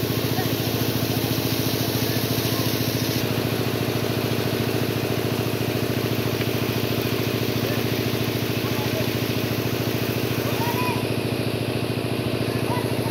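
A small engine running steadily at a constant speed, with an even, fast pulse and no change in pitch.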